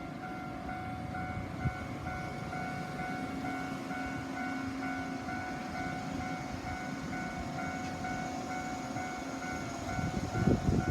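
Level-crossing warning bell ringing in a steady, evenly pulsing pattern. Near the end an Enshū Railway train's rumble rises and grows loud as it approaches the crossing.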